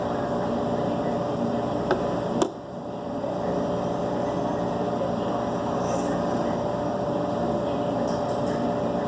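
A steady mechanical hum with a few held tones, broken by two sharp clicks about two seconds in. The hum dips briefly after the second click.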